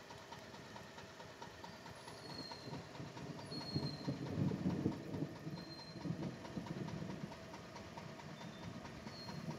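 A vehicle engine idling steadily, growing louder for a few seconds in the middle.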